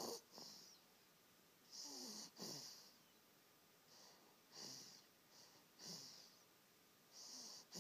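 Baby snoring softly: a faint, raspy breath in and out about every two seconds, each with a low, wavering snore under the hiss of air.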